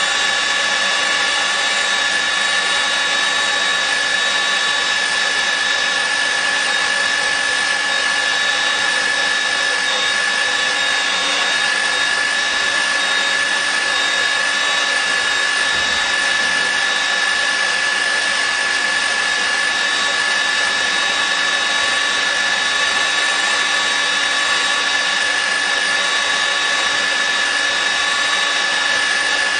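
Steel-drilling power drill's motor running steadily, with a constant high whine over an even hiss.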